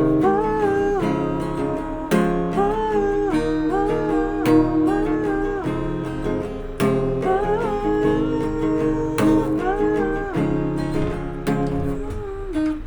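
Acoustic guitar music: chords struck about every two and a half seconds, with a gliding melody line above them.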